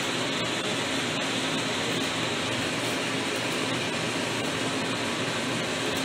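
Steady, even hiss of background noise with no distinct sound standing out.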